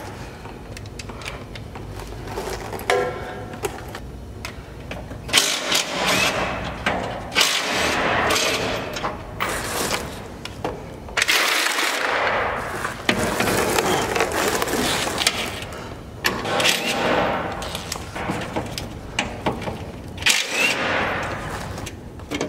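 Cordless impact wrench hammering in several bursts of one to three seconds, loosening the bolts that hold a truck's rear bumper.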